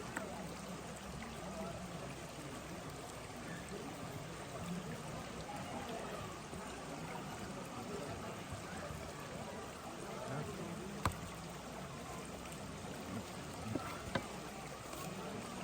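Steady rush of flowing water, like a stream, with a few sharp clicks, one near the middle and two more toward the end.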